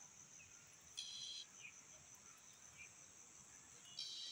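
Faint, steady, high-pitched trill of insects such as crickets, with a short buzzy call about a second in and another near the end.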